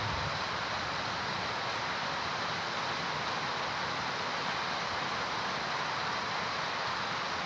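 Heavy rain pouring steadily onto trees and foliage: a dense, even hiss that holds at the same level throughout.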